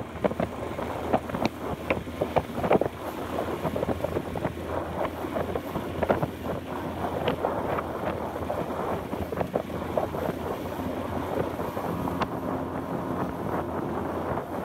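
Wind buffeting the microphone, with sharp knocks and rattles from a fishing rod on the boat. The knocks come thickest in the first three seconds, then thin out.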